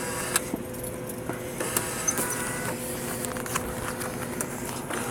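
Vending machine running with a steady electrical hum, with scattered light clicks and a brief whirring tone about two seconds in.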